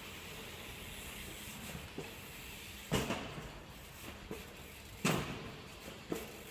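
BMX bike clattering on the car-park concrete: three sharp knocks spread over a few seconds, with a few smaller ticks between, over faint steady background noise.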